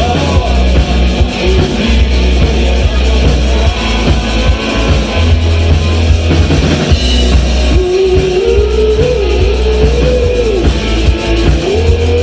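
Rock band playing: guitars and drum kit over a heavy bass line, with a wavering lead melody coming in about eight seconds in.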